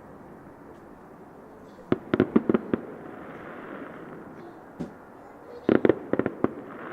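Fireworks going off: two quick clusters of sharp crackling bangs, about two seconds in and again near the end, with a single pop between them, over a steady background rumble.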